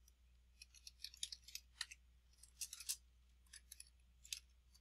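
Faint computer keyboard typing: soft, sharp key clicks in short irregular runs.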